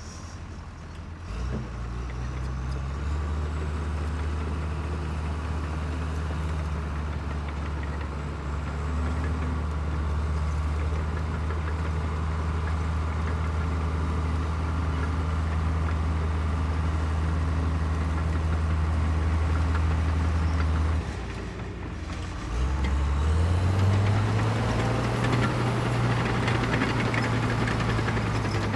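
Bulldozer's diesel engine running steadily, its pitch stepping up a couple of seconds in. About twenty seconds in it drops back briefly, then revs up again to a higher, steady pitch.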